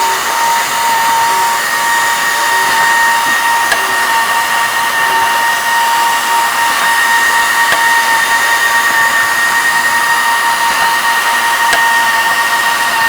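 Pneumatic drilling and tapping machine running: a steady whine over a constant hiss of air, with a few faint clicks.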